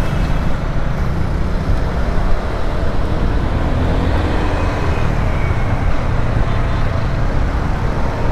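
Steady low rumble of wind and road noise on a Honda ADV scooter riding slowly through city traffic, with the surrounding cars and trucks running alongside.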